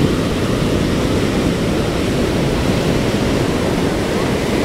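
Ocean surf from a hurricane swell breaking and washing through the shallows: a steady rush of noise, heaviest in the low end.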